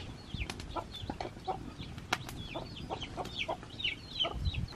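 Chickens clucking, with a quick run of short, high peeps that fall in pitch.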